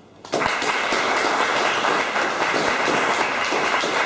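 Audience applause, breaking out suddenly just after the start and going on at a steady level.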